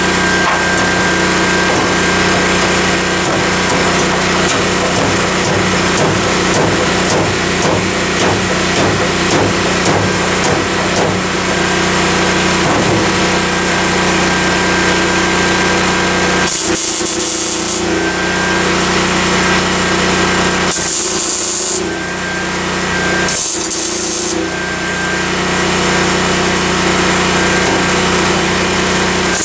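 Electric angle grinder running steadily with a constant motor hum, chattering as it grinds down fresh welds on a truck's steel floor pan. There are several short bursts of sharp high hiss in the second half.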